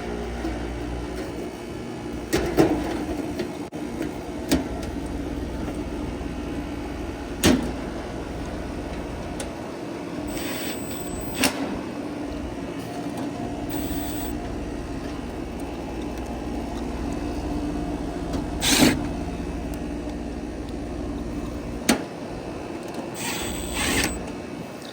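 Air-conditioning unit running with a steady hum while its sheet-metal access panel is slid back on and fitted, giving several sharp knocks and clicks and a couple of short scraping bursts.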